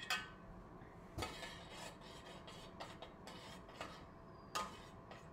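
Metal spoon stirring teriyaki sauce in a metal saucepan as the sauce thickens with a cornstarch slurry. It scrapes softly along the pan, with a few sharp clinks against the pan, the loudest right at the start.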